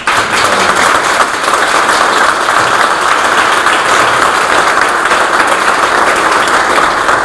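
Audience applauding, a loud, steady clatter of many hands clapping that breaks out suddenly.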